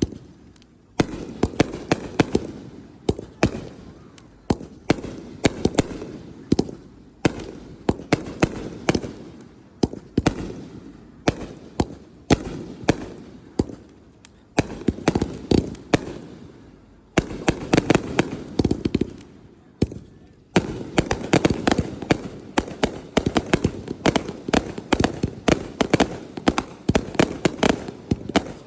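Aerial fireworks bursting one after another, sharp bangs each followed by a fading echo. About two-thirds of the way through they thicken into a dense, almost unbroken barrage of bangs and crackling.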